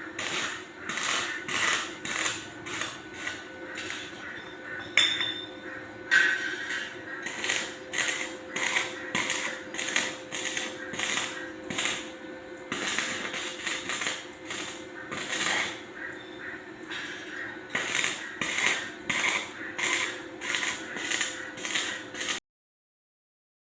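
Welding in short repeated bursts, about one or two a second, over a steady machine hum; it cuts off suddenly shortly before the end.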